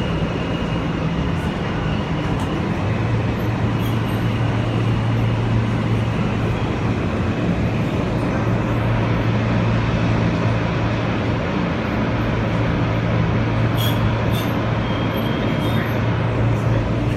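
New York City subway E train running through an underground tunnel and station, heard from inside the car: a steady rumble of wheels on rail with a low, even hum that sets in about three seconds in.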